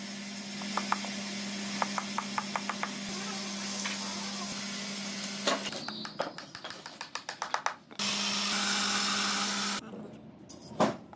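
Light, quick taps of small pins being tapped into a wooden frame, over the steady hum of a workshop machine motor. Then a power saw with a vertical blade runs through wood for about two seconds and stops abruptly, followed by one sharp knock near the end.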